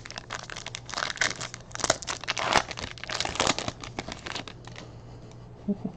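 Foil wrapper of a Panini Rookies & Stars football card pack being torn open and crinkled by hand: a dense, irregular crackling that dies down after about four and a half seconds.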